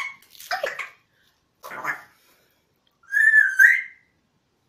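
African grey parrot whistling: a clear two-part whistle lasting just under a second, about three seconds in, the loudest sound. Two brief, softer sounds come before it.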